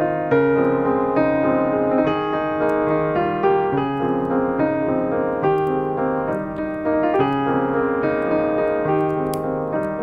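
Background piano music: a steady melody of pitched notes over held chords.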